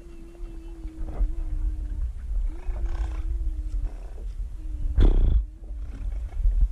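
Loud, harsh calls traded between giant otters and people in a boat imitating the otters' noises. There are four calls, the last two the loudest, over a steady low rumble.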